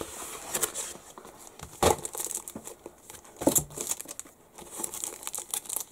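Plastic comic bags and a cardboard mailer rustling and crinkling as comics are slid out and handled. Two louder, sharper handling sounds come about two seconds in and again about three and a half seconds in.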